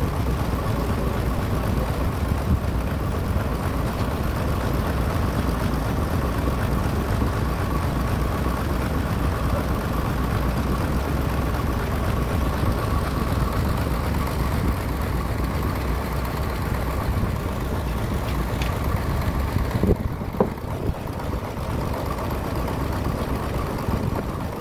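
Band sawmill running steadily, a continuous machine drone with a low hum and a steady whine, with a couple of short knocks about twenty seconds in.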